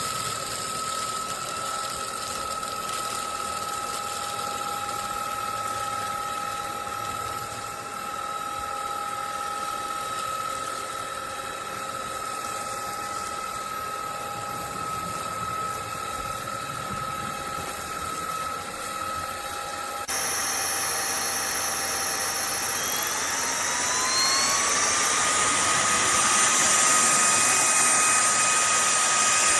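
Cordless stick vacuum's motor running with a steady high whine. About two-thirds of the way through it suddenly gets louder, then its pitch rises over a couple of seconds as the motor speeds up and holds at a higher speed.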